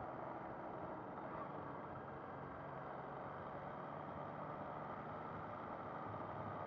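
MV Agusta Brutale 800 three-cylinder motorcycle ridden at a steady speed, its engine and the rushing air blending into an even, muffled drone as heard from a camera on the bike.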